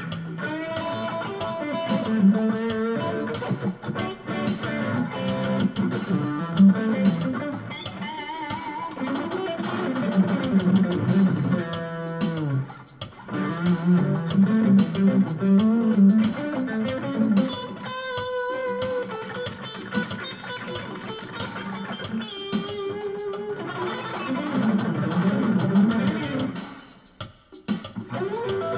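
Electric guitar with ceramic pickups played through a small Roland Cube-10 practice amp on its crunch 'Classic Stack' setting: a lead line of single notes with vibrato and bends, with a short break near the end.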